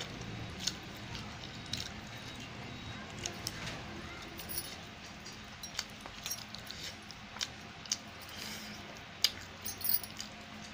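Fingers mixing and scooping rice and chicken on a stainless steel plate: scattered sharp clicks and scrapes of skin and food on the metal, irregular, the loudest about nine seconds in.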